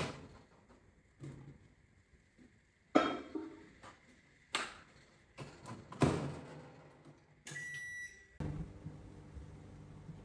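A few sharp knocks and clatters, then a beep lasting almost a second, after which a steady low appliance hum starts up.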